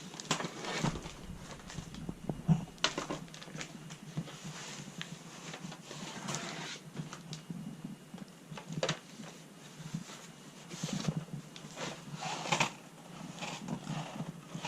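Cardboard box and packaging being handled as parts are unpacked: irregular rustling, scraping and light knocks, with a sharper knock about two and a half seconds in.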